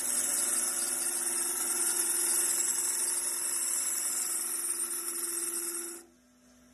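Wood lathe spinning while a 10 mm spindle gouge hollows the end of the turning blank: a steady hiss of the cut over the lathe's hum. The cutting stops suddenly about six seconds in, leaving only a faint hum.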